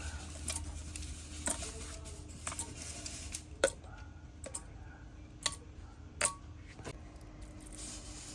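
Irregular sharp metallic clicks and taps, about eight of them, the loudest a few seconds in, from hand work on diesel engine parts.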